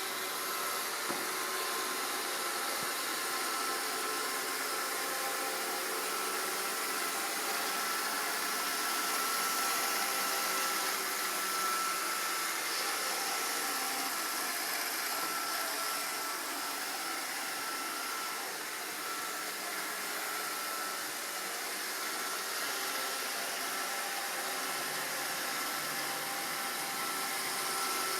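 iRobot Roomba 531 robot vacuum running steadily: a continuous whirring hiss with a thin high whine.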